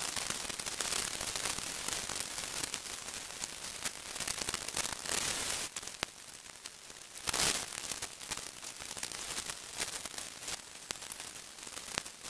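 Steady hiss with many faint crackles and clicks, and a louder rush of noise about seven seconds in.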